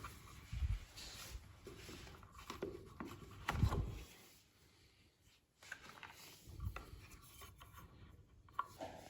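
Faint rubbing and scraping sounds with a few soft, dull knocks, as of parts being handled.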